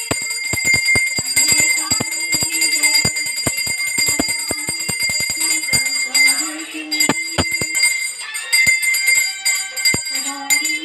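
Puja bell ringing quickly and continuously during an aarti, with a wavering melody beneath it.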